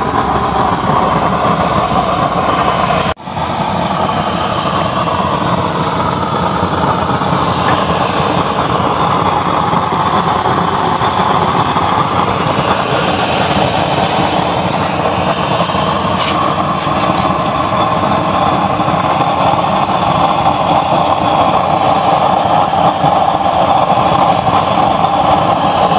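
Homemade used-oil stove burner running at full flame, a loud, steady rushing noise of the burning oil and air. It drops out for an instant about three seconds in.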